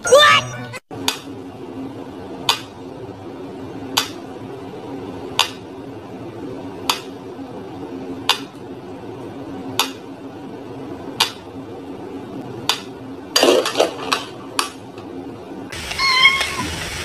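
Mechanical pendulum metronome ticking slowly and evenly, about one tick every second and a half. A dog barks sharply just before the ticking starts, and near the end come a few louder knocks, then a short pitched electronic sound.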